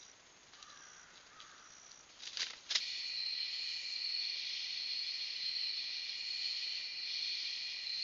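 Faint woodland ambience with a few brief high chirps, then a couple of sharp clicks about two and a half seconds in, followed by a steady chorus of night insects that holds several even, high-pitched tones.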